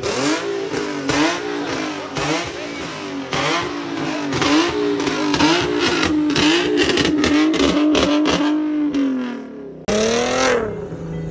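Infiniti V6 engine with downpipes revved hard and held high, its pitch dipping and climbing back again and again, then falling away near the end. A fresh rev rises and drops right after.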